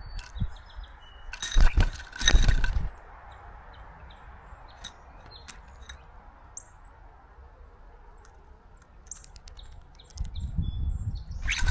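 Birds chirping with short, scattered calls, and two loud bursts of noise: one about a second and a half in, the other building near the end.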